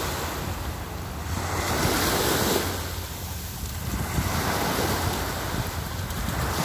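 Small sea waves breaking and washing up a sandy beach, the surf swelling and easing, with wind rumbling on the microphone.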